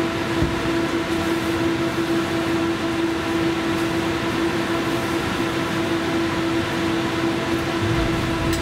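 Inside the cab of a 71-911EM "Lvyonok" low-floor tram rolling slowly on rails: a steady electrical hum at one unchanging pitch over the car's running rumble, with a low knock near the end.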